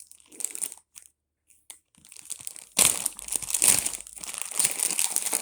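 A bag being handled and torn open, crinkling: a few scattered crinkles, a short pause, then loud, continuous crinkling and tearing from about three seconds in.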